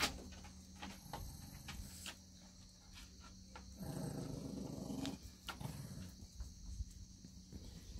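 Shih Tzu dogs play-growling as they tussle, with one low growl lasting about a second near the middle and scattered light clicks.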